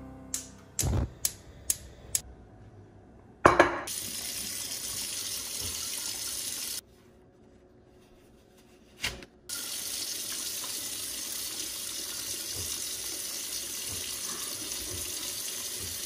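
About five sharp clicks, then a loud knock, then a steady rushing hiss. The hiss cuts off suddenly, and after about two seconds of quiet and a click it returns and runs on.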